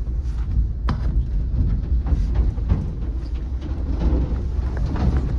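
Mahindra Thar heard from inside the cabin on rough ground: a steady low rumble with scattered knocks and rattles, and a sharp knock about a second in.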